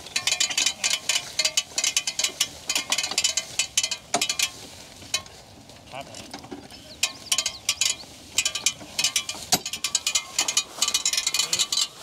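Horse-drawn sickle-bar hay mower clattering as a draft-horse team pulls it through thick standing hay: the rapid ticking of the reciprocating cutter knife and drive gears. The clatter comes in fast runs and eases off for a couple of seconds midway.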